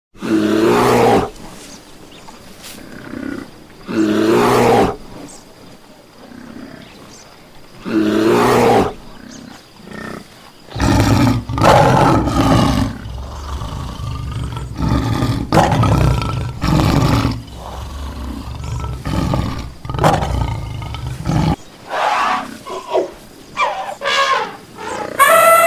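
Large wild animals roaring and growling: three long roars about four seconds apart, then a stretch of heavy, deep roaring and grunting, then shorter calls. An elephant's trumpet begins near the end.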